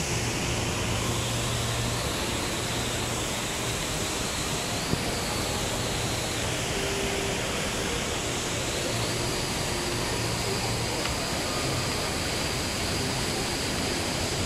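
Steady rush of a large indoor waterfall, the Rain Vortex at Jewel Changi, falling from the centre of a glass dome into its pool: a constant, even wash of water noise.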